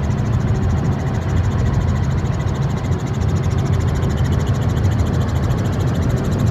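Helicopter running steadily: a constant low engine and rotor rumble with a fine, rapid even pulsing.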